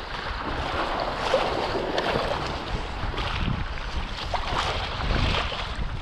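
Wind buffeting an action camera's microphone, in uneven gusts, over the hiss of water rushing and splashing past a kite hydrofoil board under way.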